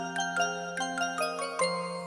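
Background music: a light glockenspiel-like melody of quick ringing mallet notes, about five a second, over a held low note.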